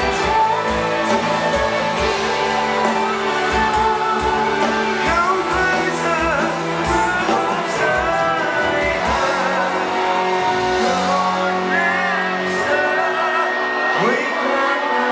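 Live pop band playing through a pub PA: a man singing into a microphone over electric guitar, bass guitar and drums with a steady beat.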